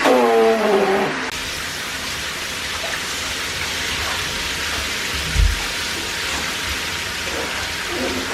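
Water running in a steady hiss as a puppy is bathed and rinsed. A short falling pitched sound comes at the start, and a single dull thump about five seconds in.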